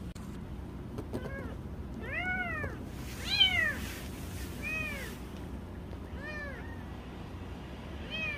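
Very young kittens mewing: about six short, high-pitched mews, each rising then falling in pitch, the loudest about three and a half seconds in.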